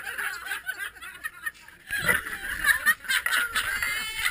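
A few people laughing and snickering in short bursts.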